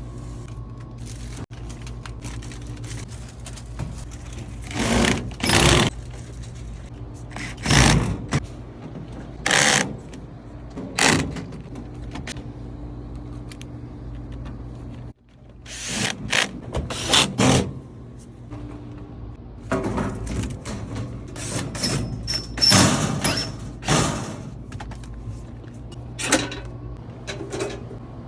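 Irregular knocks and clattering, as of hard parts being handled or struck, over a steady low hum; the sound cuts out briefly about halfway through.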